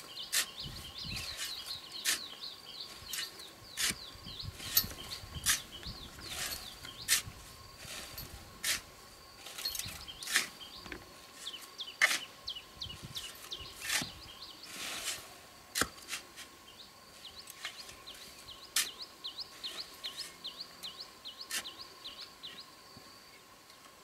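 Steel shovel scraping into a sand pile and tipping sand into a wheelbarrow, a sharp scrape or clink every second or two. Rapid high chirping runs underneath throughout.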